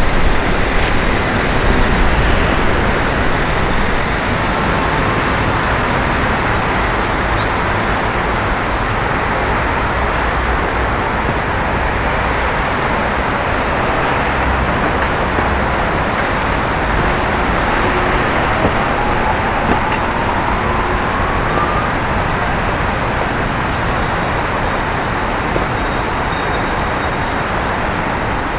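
Steady city road-traffic noise from passing vehicles, with one engine's pitch rising gently about two-thirds of the way through.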